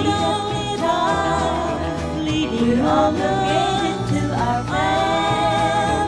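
Country song recording: a melody of long held notes that slide up into pitch, over steady bass and backing.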